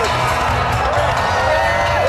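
Fireworks festival finale: music plays while a crowd cheers and calls out, with voices rising and falling in pitch, over a steady low rumble from the fireworks.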